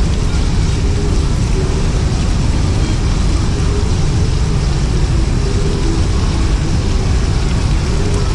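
Water fountain rushing and splashing in a loud, steady wash of noise.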